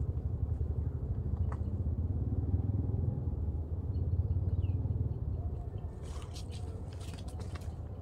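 Low engine rumble of a passing motor vehicle, swelling and then fading about five seconds in. Footsteps crunch on dry leaf litter near the end.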